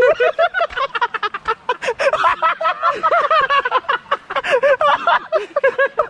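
A man laughing hard, in long runs of quick bursts.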